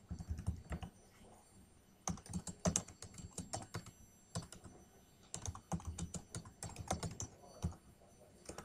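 Typing on a computer keyboard: quick runs of key clicks in several bursts, with short pauses between them.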